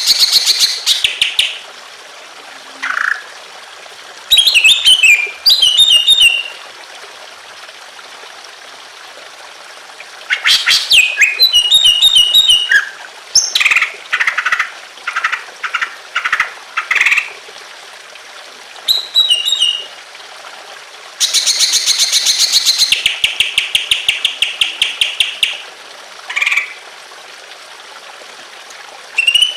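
Greater green leafbird (cucak ijo) singing in repeated bursts of fast trills and chattering phrases, with short pauses between them. The longest, densest trill comes about two-thirds of the way through. A steady trickling of water runs underneath.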